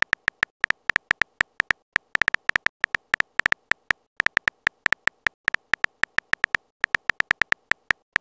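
Smartphone keyboard key-click sound effect, one short, sharp click per letter typed, about six a second in an uneven rhythm.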